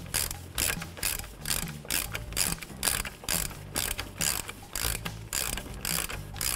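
Hand ratchet clicking in quick, even strokes, about three or four clicks a second, as it runs the front axle hub nut down onto the axle shaft.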